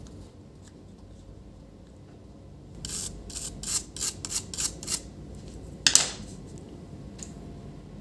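Quick rubbing strokes on a laptop motherboard, about eight in two seconds, then one louder stroke about six seconds in, as the board's surface is scrubbed clean with a brush.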